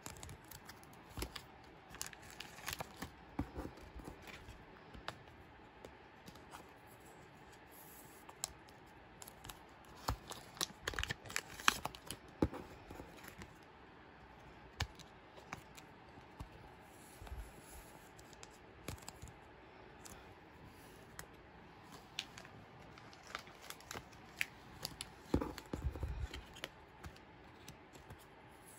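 Clear plastic card sleeves crinkling and rustling as photocards are slid into them by hand, with scattered light clicks and taps.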